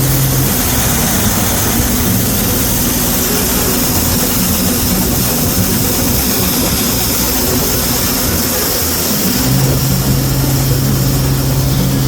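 A combine harvester's diesel engine runs steadily under harvesting load, with a hiss over it. A lower hum gets stronger about nine and a half seconds in.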